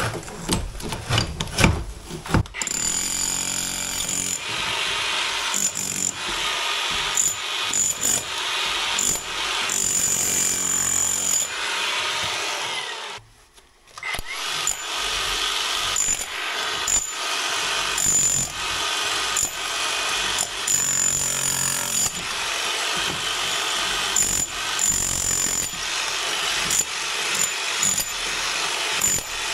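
Electric hammer with a chisel bit rapidly hammering out old brickwork and mortar inside a chimney flue. It runs in long bursts and stops briefly about 13 seconds in.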